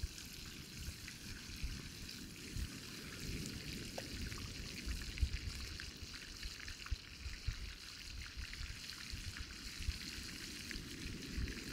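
Beer-battered basa fillets deep-frying in hot oil in a cast-iron skillet over a campfire: a steady sizzle with small pops and crackles, over a low rumble.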